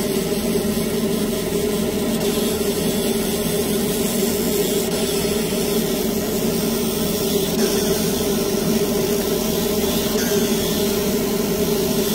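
Laser engraving machine running steadily as its beam ablates the black epoxy off a memory chip: a constant machine drone with a steady low hum.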